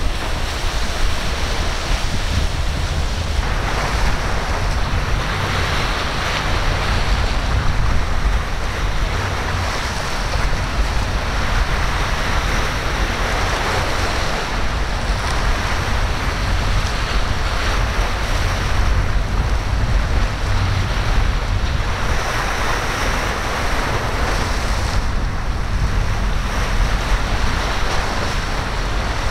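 Surf and breaking waves, rising and falling every few seconds, with heavy wind buffeting the microphone in a constant low rumble.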